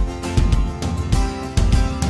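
Background music: an instrumental track with guitar and a steady beat.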